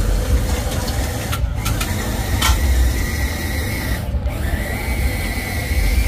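Busy street-food stall clatter: metal spoons and ladles clinking and scraping in stainless steel mixing bowls over a steady background din, with a sharp clink about two and a half seconds in and a thin steady whine joining about four seconds in.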